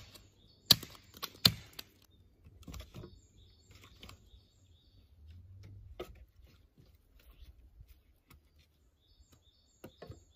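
Machete blade chopping into a wooden stake: three sharp strikes in the first second and a half, followed by softer knocks and rustles of sticks being handled. Small birds chirp now and then in the background.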